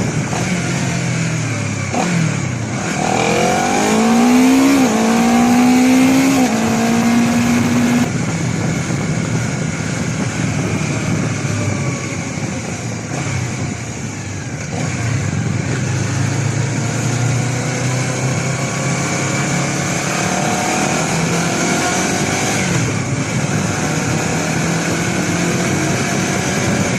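Honda CBR250RR motorcycle with its stock exhaust, ridden on the road. A few seconds in the engine note climbs and drops back twice as it shifts up through the gears. It then settles into a steadier cruise under wind noise and climbs again near the end.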